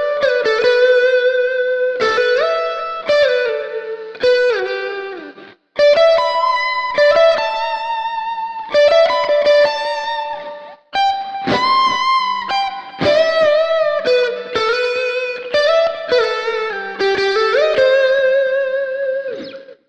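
PRS Silver Sky SE electric guitar through a simulated amp with a single Tube Screamer overdrive, playing lead phrases of single notes with string bends and vibrato in a lightly overdriven tone. The phrases break briefly twice.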